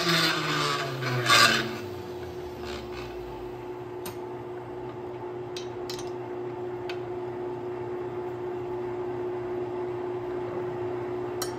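Rotary grinder on a jig grinding the rubber of a balloon tire spinning on a lathe, truing it round. The rasping grind is loud for about the first second and a half, then gives way to a steady hum of the grinder and lathe running, with a few light ticks.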